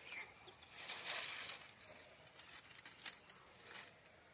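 Small fire of twigs and dry palm leaves crackling and rustling faintly as it is tended, with a few sharp clicks and a louder rush about a second in.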